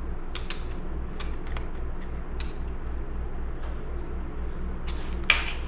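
Scattered light clicks and taps of small parts and tools being handled while a chainsaw carburetor's fuel line is worked loose, with one sharper click about five seconds in. A steady low pulsing hum runs underneath.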